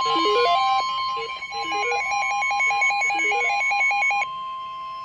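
Steady single-pitch weather-radio warning alert tone, overlaid by a fast beeping electronic melody that stops abruptly about four seconds in.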